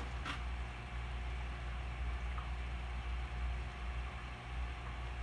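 Aquarium equipment running with a steady low hum and a faint, even hiss of moving water. There is a light click just after the start.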